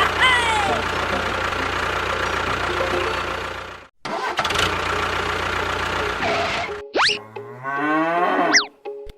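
Steady engine noise with a low hum. It cuts out abruptly about four seconds in, then starts again. Near the end come several sweeping rising and falling whistle-like glides.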